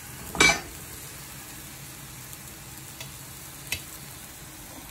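Paratha sizzling on a hot tawa griddle, a steady hiss, with a brief loud scrape of the spatula against the bread and pan about half a second in and a single sharp click later on.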